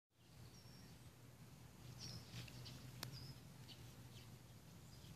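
Near silence: a faint steady low hum, a few faint high chirps of small birds, and one sharp click about three seconds in.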